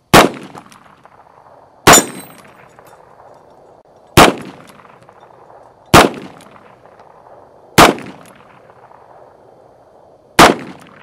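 Six revolver shots from a Ruger Security Six fired single action, about one every two seconds, each with a short trailing echo.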